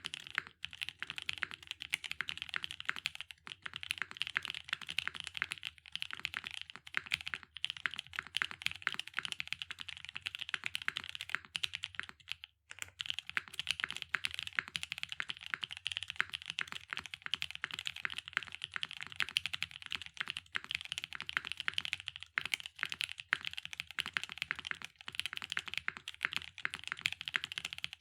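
Fast continuous typing on a custom 60% mechanical keyboard, a CKC Aksara 60 with lubed and filmed Milkytop Creamsicles switches on a polypropylene plate, top-mounted and undampened, under GMK keycaps. Dense key clacks with a few brief pauses, including one about twelve seconds in.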